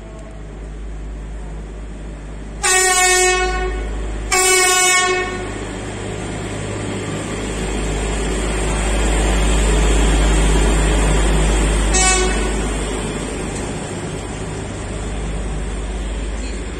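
Yellow Indian Railways DGS track maintenance machine sounding its horn in two blasts about a second long, then one short toot several seconds later, while its engine and wheels rumble past, loudest in the middle as it passes.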